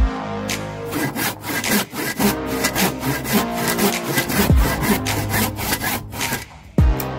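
Hand saw cutting into a wooden block, back-and-forth strokes rasping through the grain.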